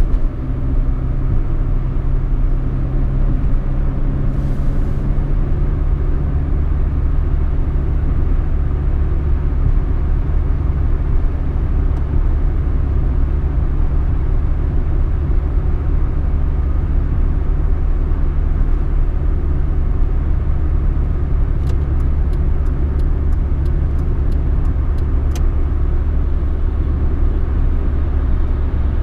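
Peugeot 206 car driving: a steady low engine and road rumble, with an engine hum that fades after the first few seconds. In the last third comes a run of light, even ticks, about three a second, lasting about four seconds.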